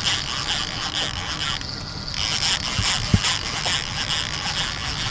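Heavy fishing reel being cranked against a hooked paddlefish, its gears whirring and clicking, with a short pause about a second and a half in. A dull thump a little after three seconds in.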